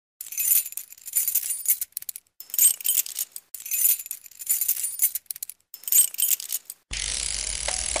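Intro sound effect of high-pitched shimmering, jingling sparkles in about five swells with short gaps between them. About seven seconds in it gives way to a steady hiss with a low hum.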